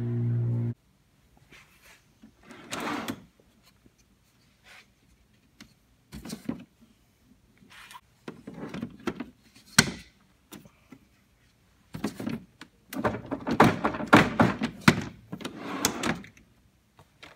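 Wooden drawer trays on self-closing metal ball-bearing drawer slides being pulled out and pushed shut, with a plastic Festool Systainer case set on them and slid in. Scattered knocks and short sliding runs, a sharp clack about ten seconds in, and a busy stretch of knocking and rattling near the end.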